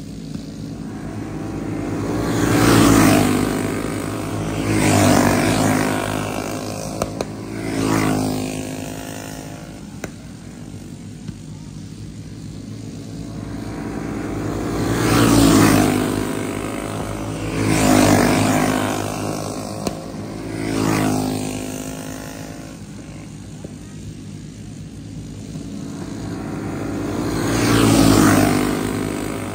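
Flathead-engine racing karts going past at speed on a dirt oval, each engine swelling and then dropping in pitch as it passes. They come by in bunches of two or three, about every twelve seconds, three times.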